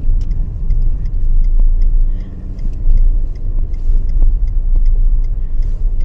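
Car interior noise while driving on a snowy road in a windstorm: a steady low rumble of engine, tyres and wind. A light, regular ticking runs through it.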